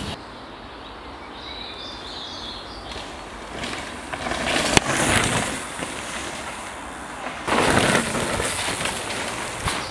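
Mountain bike passing on a dirt trail: tyre noise on the dirt swells twice, with a sharp knock about five seconds in. Faint birdsong can be heard in the quieter first few seconds.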